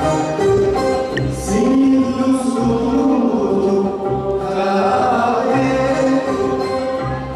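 Sinhala song: a voice singing long, gliding held notes over instrumental accompaniment with a steady low drum beat.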